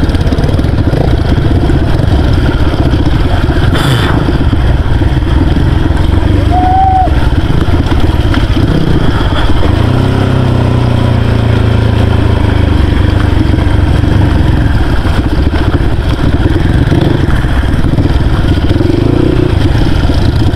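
Dirt bike engine running as the bike is ridden over a rough, rocky dirt track, the engine note holding steadier for a few seconds around the middle.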